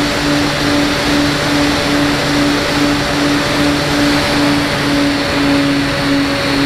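FPV model aircraft's motor running, heard as a hum that pulses about three times a second under a constant hiss.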